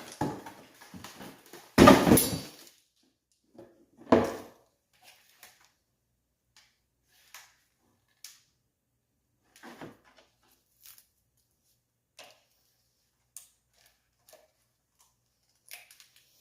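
Knocks and clunks from handling the old ATV seat: a loud clunk about two seconds in and a thud about four seconds in, then scattered faint clicks and taps.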